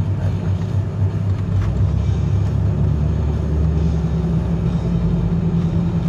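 Work van's engine and road rumble heard from inside the cabin while driving slowly; the low hum shifts in pitch about two seconds in as the engine speed changes.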